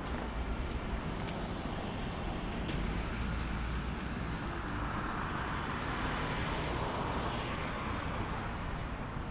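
A road vehicle passing, its tyre and engine noise swelling about halfway through and fading away, over a steady low outdoor rumble.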